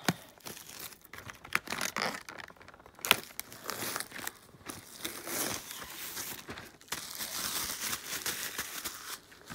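Plastic shrink wrap crinkling and tearing as it is peeled off a cardboard trading-card box, in irregular crackles with one sharp snap about three seconds in.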